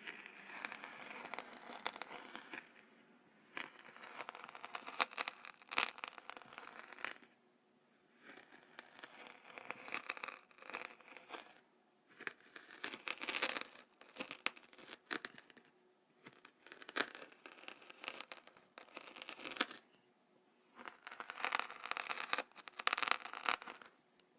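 Kinetic sand being handled close to the microphone: repeated bouts of crisp, grainy crackling, each a second or two long, with short pauses between.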